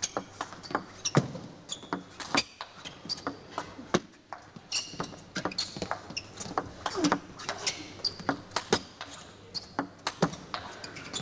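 Table tennis rally: the ball knocks sharply off the rackets and the table in quick, irregular alternation, several clicks a second, during a long exchange against a defensive chopper.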